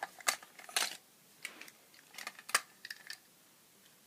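Irregular sharp clicks and clacks of hard plastic toys being picked up and moved by hand, about ten of them over three seconds, then a pause.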